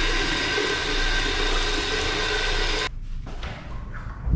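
Loud rush of running water in a small tiled restroom, with a few steady whistling tones in it, cutting off suddenly about three seconds in. Then come quieter handling sounds and a sharp knock near the end as the restroom door swings open.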